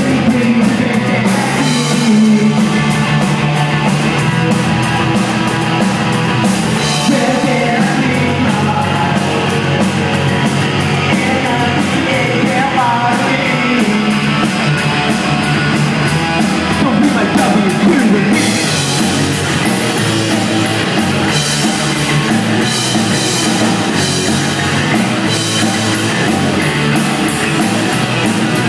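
Three-piece punk rock band playing: electric guitar, electric bass and a drum kit with crashing cymbals, loud and steady throughout.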